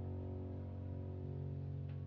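Soft background music: sustained, held chords with no clear beat.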